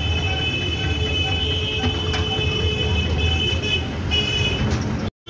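Busy street noise: a steady low rumble with a constant high whine and faint short repeating tones over it. The sound cuts out briefly just before the end.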